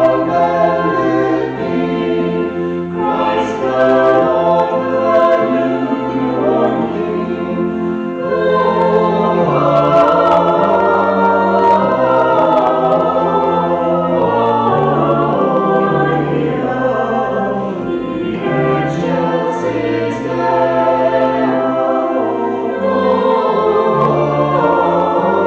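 A choir singing a hymn in sustained chords.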